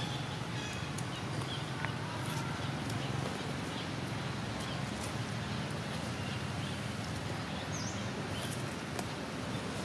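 Steady outdoor ambient noise with a low rumble, with a few faint short high chirps scattered through it.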